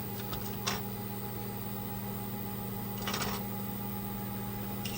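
3D printer standing powered, with a steady low hum. A few light clicks come a little under a second in, and a short rustle about three seconds in.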